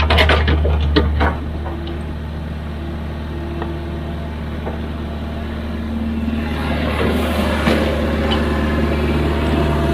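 Heavy diesel engine of an excavator running, with a steady low drone. It is louder with a few sharp knocks in the first second or so, then eases off and builds up again, busier, about two-thirds of the way in.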